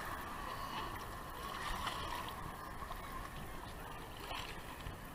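Shallow sea water sloshing and lapping close by in choppy surf, with distant voices from a crowded beach.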